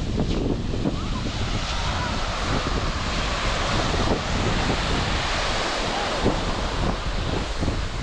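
Sea surf washing onto the beach in a steady rush, with wind buffeting the microphone in low rumbling gusts.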